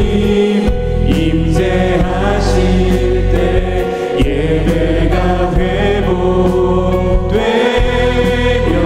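Live contemporary worship song: a male lead singer with acoustic guitar and women backing singers singing in Korean over a steady beat and bass.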